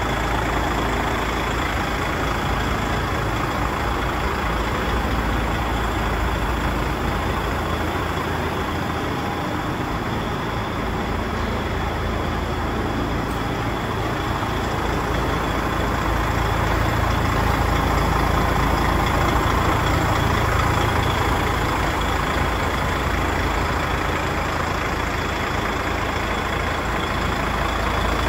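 DAF XF105's PACCAR MX 460 six-cylinder diesel engine idling steadily, getting somewhat louder for several seconds past the middle.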